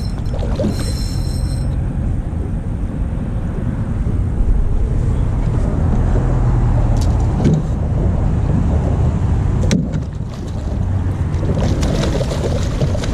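Wind buffeting the microphone, a steady loud low rumble, with a few faint clicks and a brief high metallic ringing near the start.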